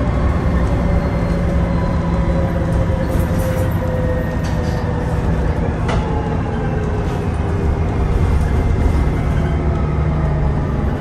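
MAN A22 (NL323F) city bus with a Voith DIWA 864.5 automatic gearbox, heard inside the cabin: steady diesel engine and drivetrain rumble with whining tones that slowly fall in pitch as the bus slows. A single sharp click about six seconds in.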